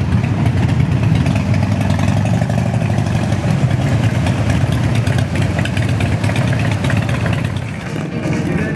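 Vehicle engines running steadily with a low drone and some revving, easing off near the end.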